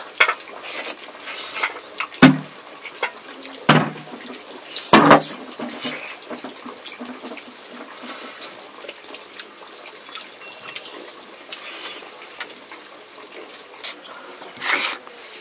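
Water splashing and trickling, broken by a few sharp knocks: three within the first five seconds and one more near the end.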